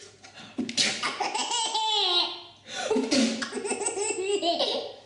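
A baby laughing hard in two long bouts, each a quick run of high-pitched laughs, with a short break for breath between them.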